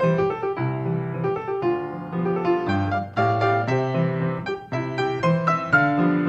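Grand piano played solo: a continuous flow of struck notes and chords over a moving bass line.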